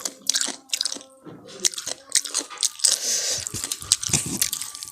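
Close-up biting and chewing of chicken: repeated crunches and crackles of food being bitten and chewed, with a denser stretch of crunching about three seconds in.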